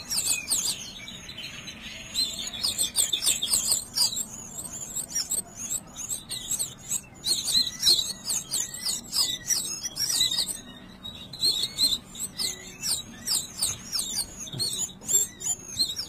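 A brood of nestling birds begging for food with rapid, high-pitched chirps, many calls overlapping, pausing briefly now and then.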